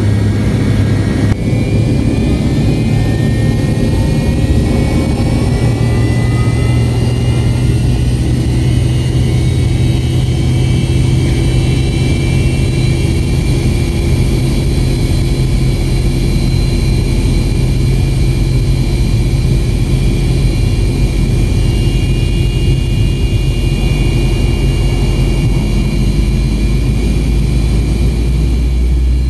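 Cabin sound near the rear of a McDonnell Douglas MD-88, from its tail-mounted Pratt & Whitney JT8D turbofan running during a single-engine taxi. It is a steady, loud low drone, with a whine that rises in pitch over the first several seconds.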